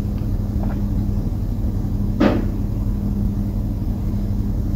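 One sharp click about two seconds in, with a couple of faint ticks before it, as a Zippo lighter is handled, over a steady low hum.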